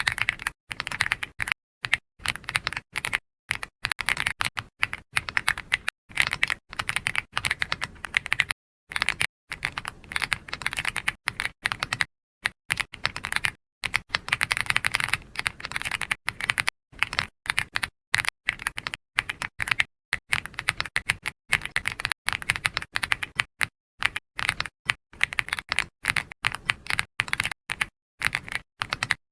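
Typing on a computer keyboard: soft keystroke clicks in quick runs of a second or two, broken by brief pauses.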